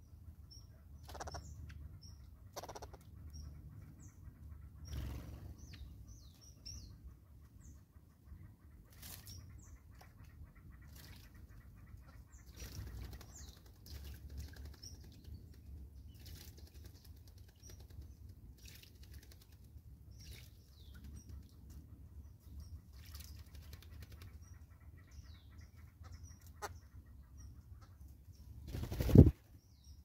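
Small wild birds chirping with short high calls, with scattered wingbeats and taps as they fly to and from a ground feeder. Near the end a loud, close flutter of wings swells and stops abruptly.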